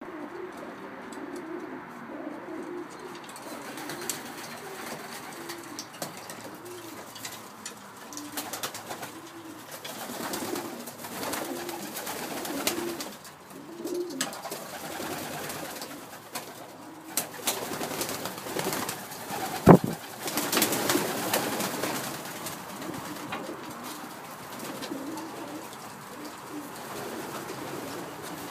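Racing pigeons cooing in a wooden loft: a steady run of low, repeated warbling coos. Scattered light clicks, and one sharp knock about two-thirds of the way through.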